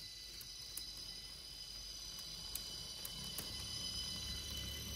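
N gauge Kato TGV Sud-Est model train running toward the microphone, its LokSound 5 decoder playing TGV running sound through the model's small speaker: a steady high-pitched whine growing louder as it nears, with a low rumble building about three seconds in and a few sharp clicks.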